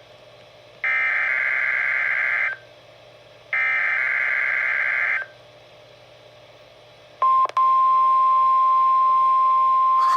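NOAA Weather Radio SAME header: two screechy digital data bursts, each about a second and a half long, with a one-second gap between them. About 7 seconds in, after a brief click, the steady 1050 Hz weather radio warning alarm tone starts and holds.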